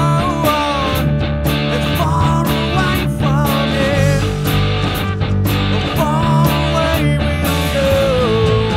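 Rock music: a lead melody that bends and slides in pitch over steady bass and a regular drum beat.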